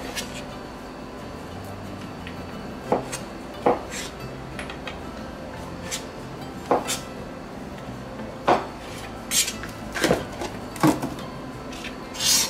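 Chef's knife slicing mushrooms, the blade knocking on the cutting board in single irregular strokes. The strokes come a second or more apart at first and closer together in the second half.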